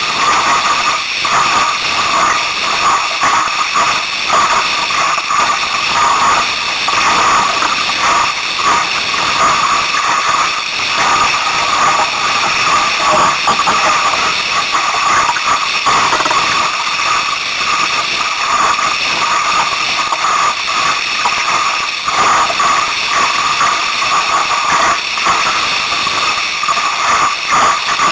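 Steady, loud rush of strong wind buffeting the microphone, mixed with water rushing and splashing along the hull of a small Sunfish sailboat moving fast.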